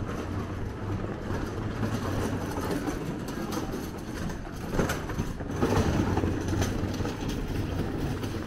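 Steady low mechanical rumble and hum, with scattered clicks and knocks that grow louder around the middle.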